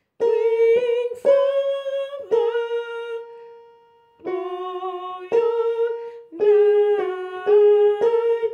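A woman singing a hymn's soprano harmony line on an open vowel: a slow string of about nine held notes, with a short break a little before halfway. Keyboard notes sound under the singing, each note starting sharply and fading.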